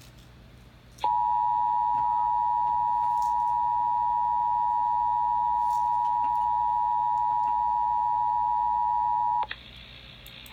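Emergency Alert System attention tone: a loud, steady electronic tone that starts about a second in, holds for about eight seconds, cuts off, and starts again just before the end.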